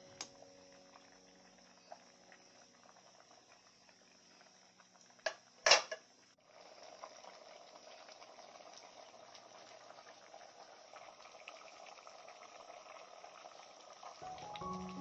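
Coconut-milk curry with young jackfruit simmering in a pot, a soft bubbling and crackling with many small pops that thickens after about six seconds. A brief loud clatter sounds about five and a half seconds in.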